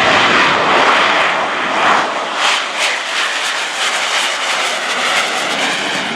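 McDonnell Douglas AV-8B Harrier II's Pegasus turbofan at high power as the jet climbs away just after a short takeoff. It makes a loud jet roar with a rapid pulsing in the middle, easing slightly near the end.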